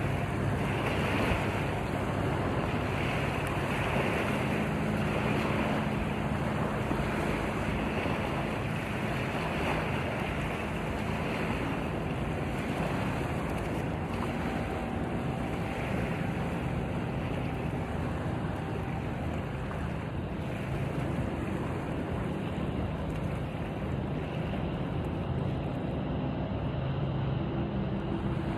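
Small waves washing onto a sandy shore, with wind buffeting the microphone. A faint low steady hum sits underneath.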